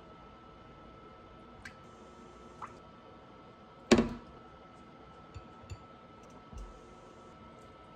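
Quiet kitchen handling sounds as sauce ingredients are measured by metal spoon into a glass bowl: a few small ticks and clinks, and one louder knock about four seconds in.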